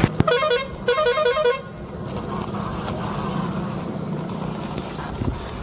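A vehicle horn toots a quick, repeating musical tune for about a second and a half, then cuts to a steady engine-like rumble.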